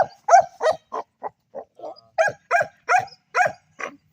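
Dog barking repeatedly in short, high barks, about three a second; the barks go softer for a moment in the middle, then come loud again.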